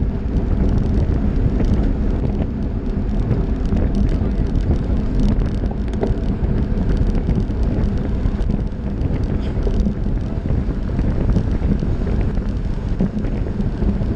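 Wind buffeting the microphone of a camera riding on a road bike at race speed, a steady low rumble mixed with road and tyre noise from the bunch, with scattered light clicks.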